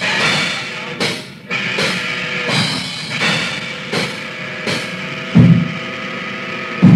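Raw hardcore punk demo tape recording: a drum kit crashing cymbals about every 0.7 s over steady held tones, with two loud low drum hits in the second half.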